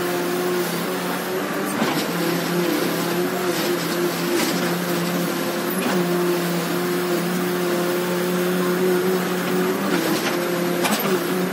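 Case 580 Super R backhoe loader's diesel engine running steadily under hydraulic load as the backhoe digs, heard from the cab, its note dipping and wavering now and then as the arm works. A few short knocks sound over the engine.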